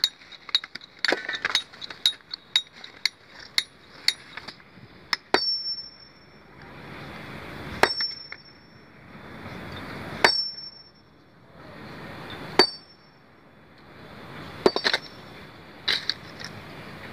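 Hammer blows on a stone boulder, each with a short ringing clink. For about the first five seconds there are quick, light taps, about two a second. After that come single heavy sledgehammer blows every two to three seconds.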